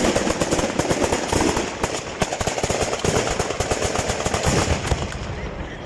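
Fireworks going off in a rapid, unbroken barrage of sharp bangs and crackles, many a second, thinning out and getting quieter about five seconds in.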